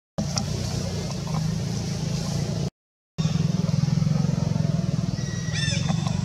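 A steady, low engine hum, broken off twice by edits, with a brief high-pitched chirp that rises and falls a little over five seconds in.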